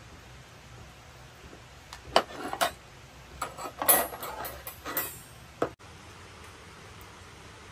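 A knife working a whole trout on a wooden cutting board: a string of sharp knocks and scrapes of the blade against the board, from about two seconds in until nearly six seconds in.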